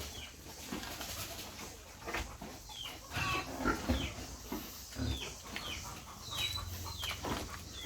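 Farm animals calling: short, high chirps that fall in pitch, repeating irregularly about every half second, with a few low thuds among them.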